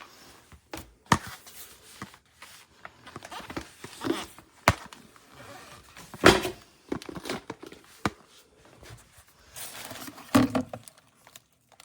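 Hard plastic parts of a cordless stick vacuum's dust bin and filter being handled and twisted apart: irregular clicks, knocks and short scrapes, with a louder knock about six seconds in and again near the end.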